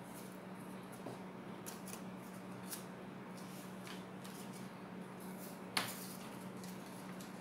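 Quiet desk-work sounds: a felt-tip marker scratching on paper and paper being handled, with a sharp tap about six seconds in as the marker is laid on the wooden table. A steady low hum runs underneath.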